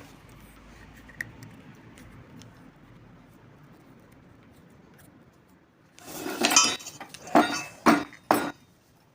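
Faint handling noise, then about six seconds in a quick run of loud metallic clinks and rattles, like small metal parts knocking together, with four or five sharp strikes in under three seconds.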